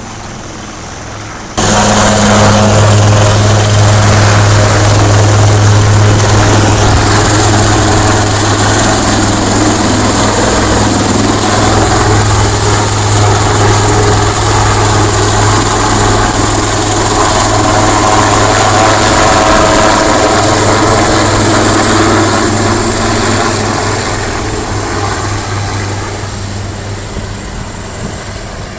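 HAL Dhruv twin-turboshaft police helicopter flying overhead. Its rotor and engines cut in abruptly and loud about a second and a half in, stay steady, then fade over the last several seconds as it flies away.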